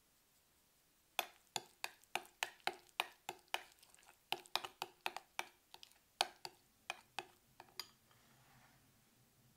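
Metal spoon clinking against a glass bowl while stirring a thick spread: about twenty quick taps, three to four a second, starting about a second in and stopping near the end, followed by a soft scraping.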